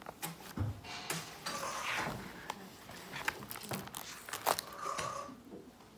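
Pages of a spiral-bound sketchbook being turned by hand: irregular paper rustling and crinkling with sharp clicks of the sheets and wire binding.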